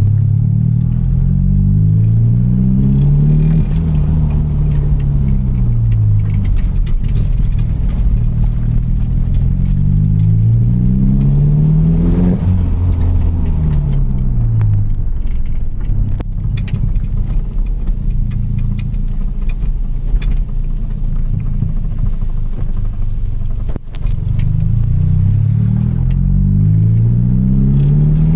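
Straight-piped Audi TT 180's 1.8-litre turbocharged four-cylinder engine, loud, its pitch climbing for about four seconds and then dropping back, twice. It then runs lower and more evenly for a while before climbing again near the end.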